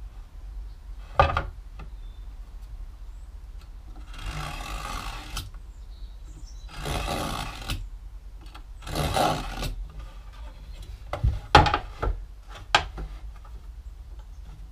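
Marking knife drawn along a try square across a wooden board: three scratchy strokes of about a second each, then a few sharp knocks of the tools on the wood near the end.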